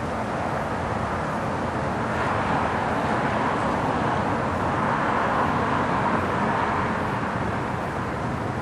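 Steady distant outdoor rumble with no distinct events, swelling a little midway and easing off near the end.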